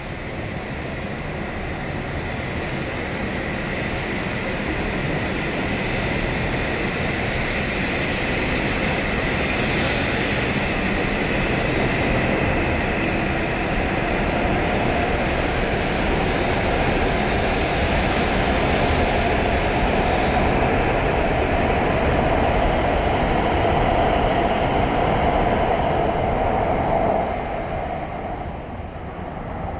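W7 series Shinkansen train pulling out and gathering speed, its running noise and whine growing steadily louder as the cars pass. The sound drops off sharply about 27 seconds in as the last car clears.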